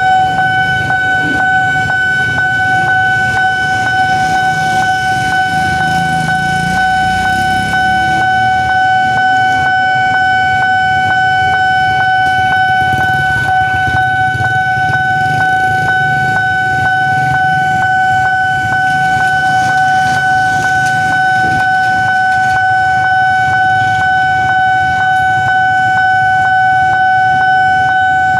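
Railway level-crossing warning alarm ringing continuously, a steady high tone with quick repeated strikes, signalling that a train is approaching. Low traffic rumble from idling motorbikes lies beneath.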